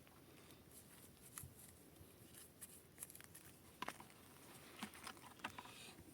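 Near silence with faint, scattered clicks and rustles, a few more of them near the end.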